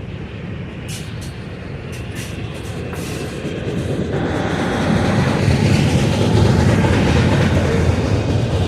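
Norfolk Southern freight train drawn by GE diesel locomotives, growing louder as it approaches and passes, with a strengthening low engine drone. Wheels click over rail joints in pairs.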